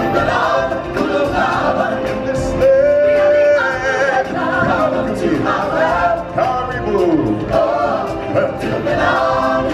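A group of singers singing together in harmony, with long held notes, over a musical backing.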